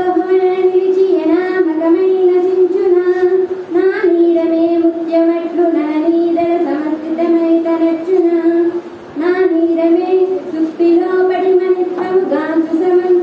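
A child singing a devotional verse in long, held, melodic notes, breaking off briefly about three and a half and nine seconds in.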